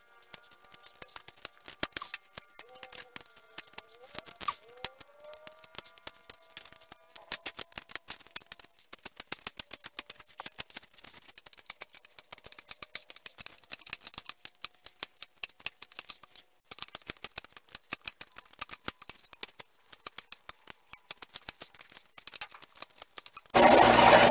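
Pocket knife whittling a green branch, many quick scraping strokes of the blade shaving wood. Near the end a 4-by-36-inch bench belt sander switches on and runs with a loud, steady noise.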